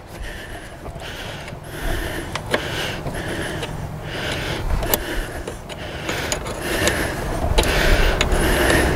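Repeated scraping strokes from a hand working among the battery cables and terminals of a riding mower's battery compartment, starting a couple of seconds in and going a little faster than once a second. A few sharp light clicks come in between.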